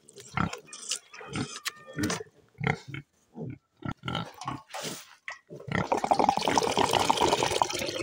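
Wet mash squelching in short, irregular bursts as a hand squeezes and kneads it in a bucket, then water pouring into the bucket from about six seconds in, a steady splashing that is the loudest part.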